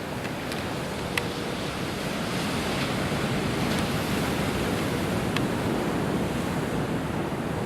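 Pacific Ocean surf washing against a rocky shore: a steady rush that swells a little toward the middle.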